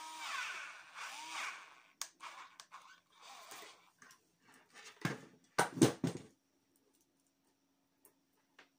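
Cordless drill running off a computer power supply, its trigger squeezed in short bursts so the motor whirs up and winds down twice. Then come clicks and clatter of handling, a few loud knocks around five seconds in, and a faint steady hum.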